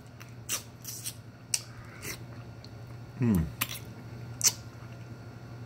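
Close-miked eating sounds: a series of sharp mouth clicks and smacks while chewing, about six in all. A short falling vocal sound comes a little after three seconds in.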